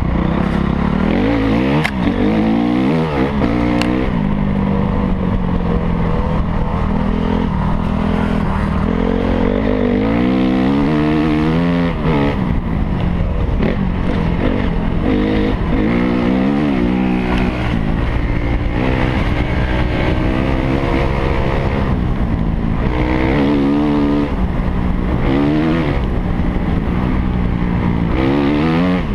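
250cc four-stroke single-cylinder motocross bike engine, heard close up from the rider's seat, revving up and falling back again and again as the throttle is opened and closed along the trail.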